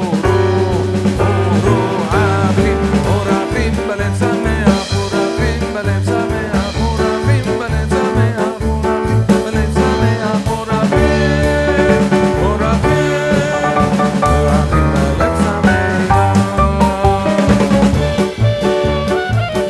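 Background music: an upbeat, swing-like instrumental track with a drum kit keeping a steady beat.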